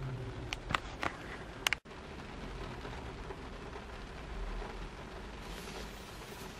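Rain falling on a car's windshield and body, heard from inside the cabin as a steady hiss, with a few sharp clicks in the first two seconds. Near the end comes a brief brighter hiss as a rain-repellent spray mists onto the glass.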